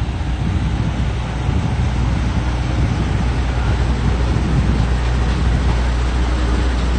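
MAN tipper truck's diesel engine rumbling as it drives slowly past close by, over steady street traffic, with wind buffeting the microphone.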